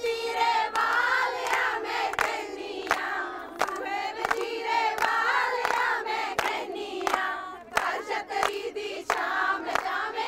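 Group of women singing a Punjabi folk song together, giddha-style, with steady hand claps keeping time at about three claps every two seconds.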